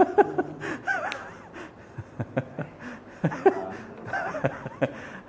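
People laughing and chuckling in short, broken bursts, with a few voiced exclamations.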